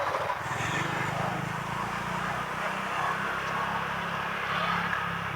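Honda PCX160 scooter's single-cylinder engine running at a steady pace while riding, with wind and road noise over it.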